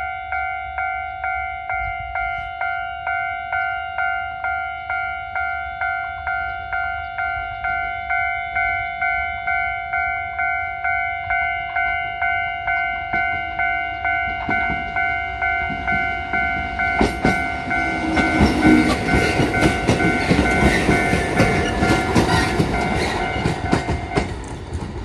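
Japanese level-crossing warning bell ringing in rapid, evenly spaced strikes, about two a second. In the last third a two-car Kotoden electric train passes over the crossing with loud rail clatter, and the bell stops shortly before the end.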